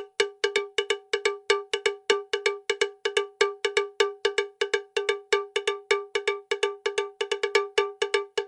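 Rapid ringing metallic strikes, about five a second in an uneven rhythm. Each strike has the same bell-like pitch, like a cowbell being hit. They start suddenly after silence.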